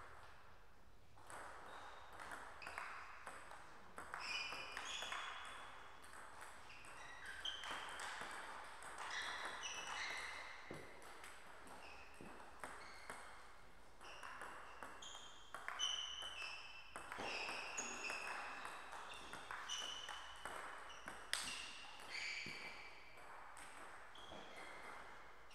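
Table tennis rallies: the celluloid-type ball clicking sharply off the bats and the table in quick back-and-forth runs, with short pauses between points.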